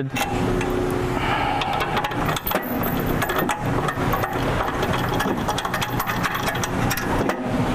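Steady motor-like running hum with many small metallic clicks and rattles, as bolts are started by hand into a steel bumper end cap.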